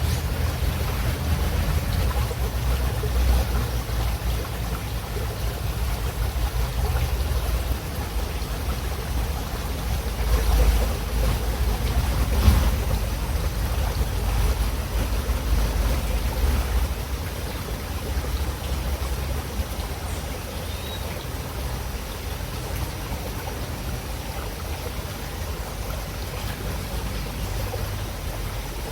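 River water running steadily, a continuous rushing with a strong low rumble underneath. It swells a little about ten to thirteen seconds in.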